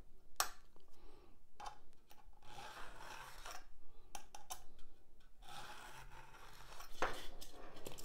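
Metal spatula tip scraping along a steel ruler as it presses a groove into a rigid foam block, in two drawn strokes. A few light clicks of the tool and ruler come between them.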